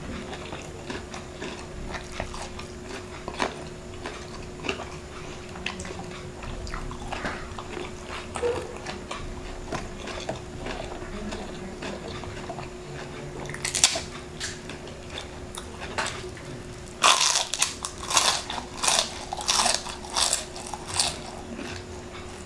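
Close-miked crunching and chewing of crispy deep-fried chicken skin: soft chewing clicks at first, one loud bite about two-thirds of the way through, then a run of loud crunches over the last five seconds or so.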